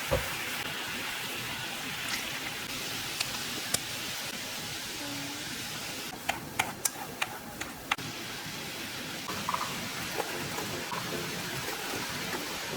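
A steady hiss with a few light clicks and taps, bunched about six to eight seconds in.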